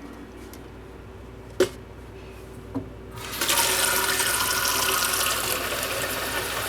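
A sharp knock, then a faucet turned on about three seconds in, with water running steadily to fill a cup where demineralization cartridges are set to soak.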